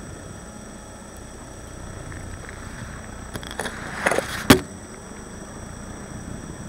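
Plastic packaging crinkling and rubbing against a camera wrapped in inflated orange plastic, with a few crackles a little past three seconds in and a sharp thump about four and a half seconds in, the loudest sound, over a steady low rumble.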